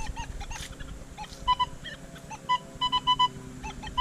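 Nokta Legend metal detector giving short, clipped beeps as the coil sweeps over ground littered with nails, with a quick run of three or four beeps about three seconds in. The nails give iron signals that can mask deeper targets.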